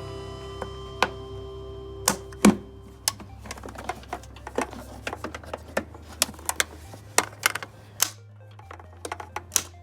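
Irregular sharp clicks and taps of plastic air-intake clips and parts being snapped and handled back into place on a 2001 Honda Prelude's air box, over background music with sustained low notes.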